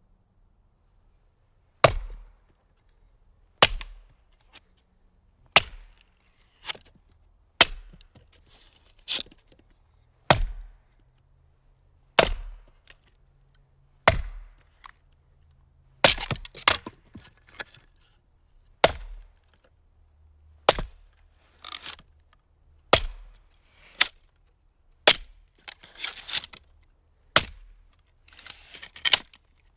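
Firewood being split: sharp chopping blows into the wood about every two seconds, some followed by smaller cracks and splintering. Near the end the splintering comes in quicker clusters.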